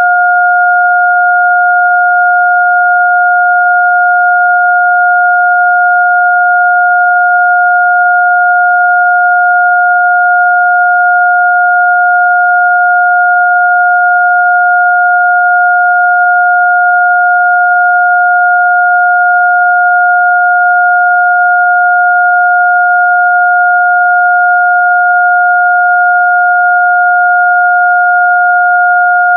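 Synthesised pure electronic tones from a sound-therapy 'healing frequency' track: two loud, unwavering pure tones sounding together, one an octave above the other.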